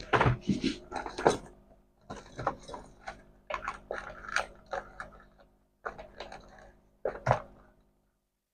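Irregular clicks, knocks and rattles of hands working on plastic parts and tools, with a sharper knock just after a second in and another near the end.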